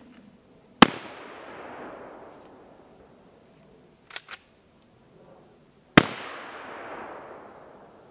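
Two shots from a scoped hunting rifle about five seconds apart, each followed by a long echo fading through the woods. Two quick clicks come between the shots.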